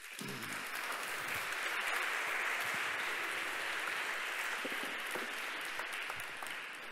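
Audience applauding in a lecture hall, building over the first second, holding steady, then thinning out near the end.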